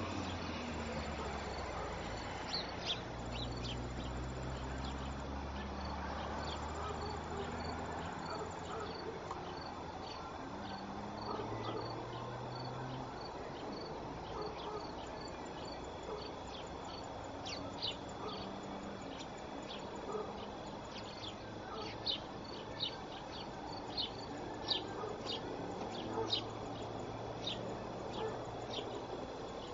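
Outdoor summer ambience of insects chirping, with short high chirps coming irregularly and more often in the second half. A low rumble comes and goes underneath.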